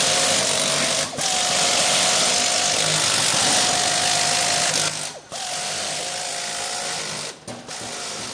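Power tool running in long runs, a steady whine over a loud hiss. It cuts out briefly about a second in, again around five seconds in, and near seven and a half seconds.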